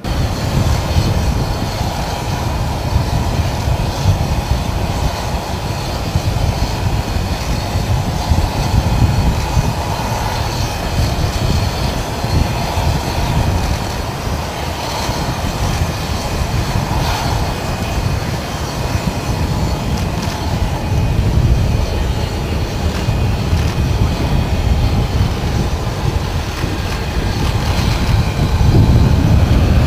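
Steady loud roar and rumble of aircraft noise on an airport apron, heavy in the low end.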